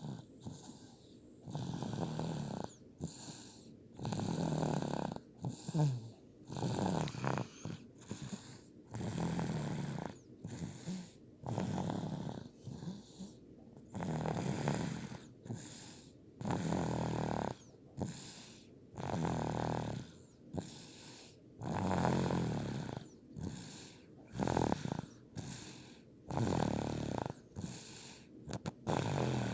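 A girl snoring in her sleep: rhythmic rasping snores, a loud one about every two and a half seconds, with softer breaths between.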